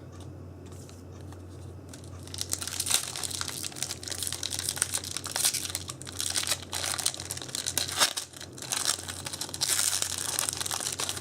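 Foil booster-pack wrapper crinkling and tearing as a Yu-Gi-Oh pack is opened, a dense crackle of fine clicks starting about two seconds in, over a steady low hum.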